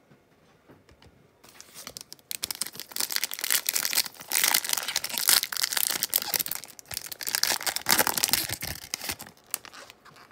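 Plastic foil wrapper of a Panini Prizm football card pack being torn open and crinkled by hand, a dense crackling that starts about a second and a half in and dies away near the end.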